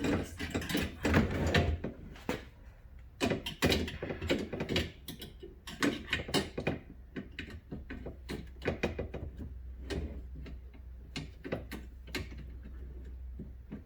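Irregular metal clicks, knocks and rattles as a French door refrigerator drawer's tilt hinge is handled and pushed back into place, over a steady low hum.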